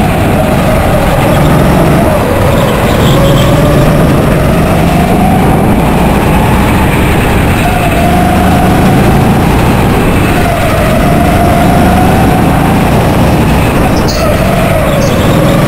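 Go-kart motor running hard through a lap, heard from on board the kart. Its pitch rises and falls several times as the kart speeds up along the straights and slows into the corners.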